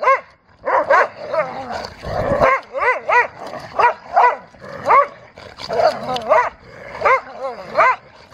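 Dogs barking and yipping as they play-wrestle: a fast run of short, high barks, each rising and falling in pitch, about two a second.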